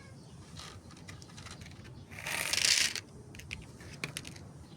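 Cats chewing dry food with faint, irregular crunching clicks, and a short hiss about two seconds in.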